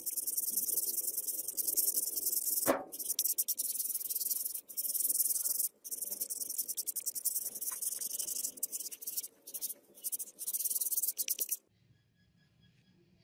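A rusty steel knife blade scraped back and forth on sandpaper: a fast, raspy scraping with a few short pauses and one sharp knock about three seconds in, stopping abruptly near the end.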